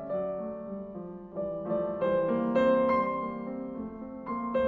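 Background music: slow piano, chords and single notes struck and left to ring.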